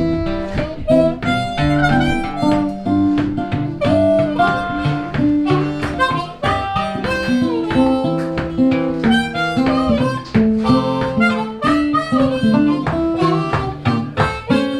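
Instrumental blues intro on harmonica and acoustic guitar: the harmonica carries the melody in held and bending notes over a plucked guitar accompaniment from an old Kalamazoo-made blues guitar.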